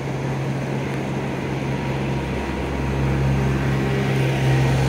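A steady low mechanical drone, like a motor or engine running continuously, over an even background hiss, growing slightly louder after about three seconds.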